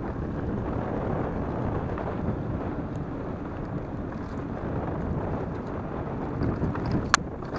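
Mountain bike riding over a dirt forest trail: steady wind buffeting on the microphone mixed with tyre rumble and frame rattle, with one sharp knock near the end.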